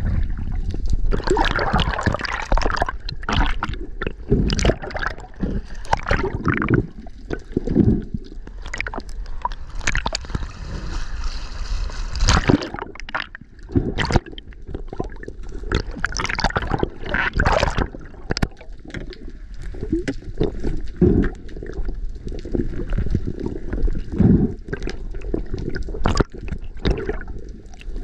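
Water sloshing and gurgling around a camera held just under the surface, with irregular surges and short knocks throughout.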